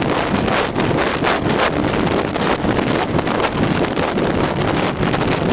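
Wind buffeting the microphone of a boat running at high speed, in irregular gusty blasts, with the 1975 Mercury 1500 inline-six two-stroke outboard running at full throttle buried underneath.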